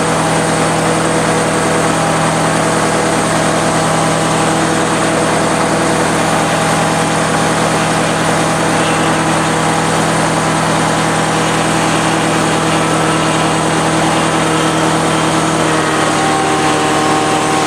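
Truck engine idling steadily, its note shifting slightly near the end.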